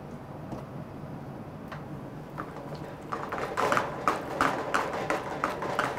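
A silicone spatula stirring spaghetti carbonara round an aluminium frying pan over a medium gas flame, as the egg sauce is worked into the pasta. It is quiet at first, then from about three seconds in a quick rhythmic run of taps and scrapes as the stirring speeds up.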